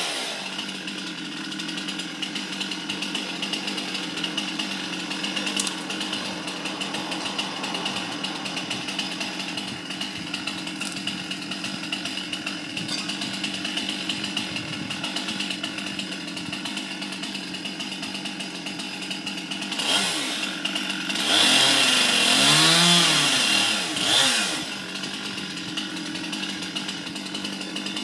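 Petrol chainsaw idling steadily. About two-thirds of the way through it is revved briefly, then again for a few seconds with its pitch rising and falling, before it drops back to idle.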